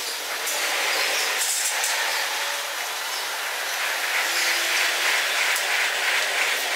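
Workshop ambience played back at eight times speed: a steady hiss, with faint short squeaks and clicks.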